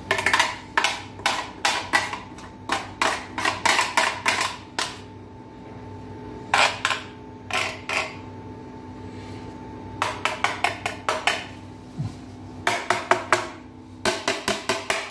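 A plastic box grater with a metal face knocked repeatedly against a porcelain bowl to shake off grated orange zest: quick runs of sharp knocks, about three or four a second, broken by short pauses.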